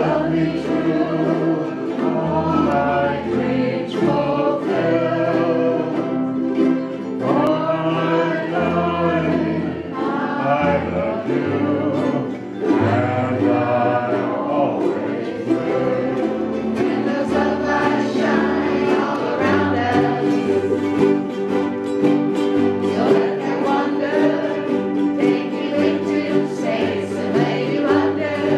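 A group of voices singing together to strummed ukuleles, with a lead singer on a microphone.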